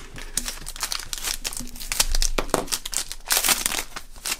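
Magic: The Gathering booster pack's foil wrapper being torn open and crinkled in the hands: a dense run of crinkling and tearing rustles, busiest near the end.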